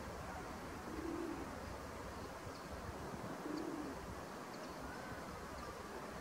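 A dove cooing low in the background, a short coo roughly every two and a half seconds, with a few faint high bird chirps.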